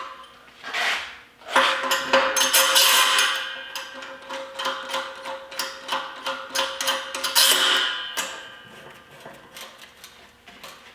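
Metal clanks and rattles of steel clamps being handled and set on a steel welding table, with the table top ringing on after the knocks. Quieter clicks follow near the end.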